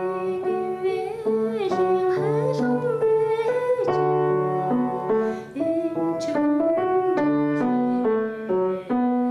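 Background music: a piano playing a slow melody over chords, the notes changing every half-second or so.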